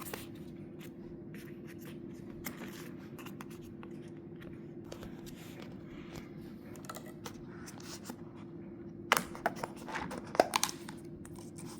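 Scratching and rustling as a plastic drink cup and boba straw are handled, with several sharp clicks and taps about nine to ten and a half seconds in, over a steady hum.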